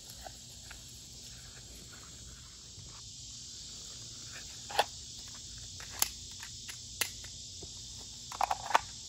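Steady high-pitched chorus of insects, with a handful of sharp clicks and taps in the second half, bunched together near the end.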